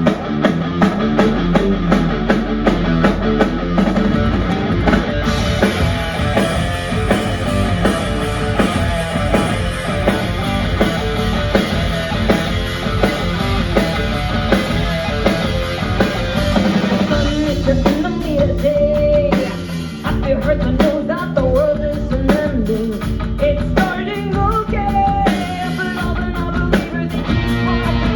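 Rock trio playing live through a club PA: drum kit, distorted electric guitar and bass, with a sung vocal line coming in about halfway through.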